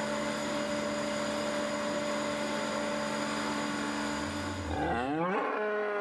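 Steady machine hum of a dairy milking parlour, with a cow mooing about five seconds in.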